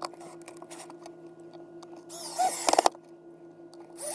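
Cordless DeWalt drill driving screws through a steel pipe flange into a pine board: a few light clicks, then a burst of under a second about two seconds in as the motor spins up and labours, and another burst starting at the very end. A steady low hum sits underneath.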